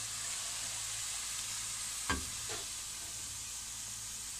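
Onions fried in olive oil sizzling as they are tipped from the frying pan into the pot of lentils, a steady hiss with one sharp knock about two seconds in.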